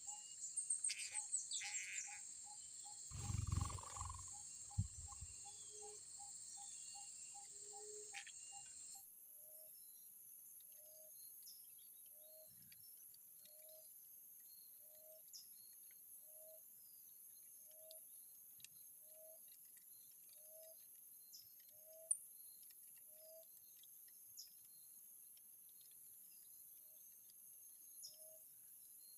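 Steady high buzzing of an insect chorus, shifting higher about nine seconds in, with a short low note repeating evenly, about three a second at first and then slower. A few high bird chirps come near the start, and a brief low rumble about three seconds in.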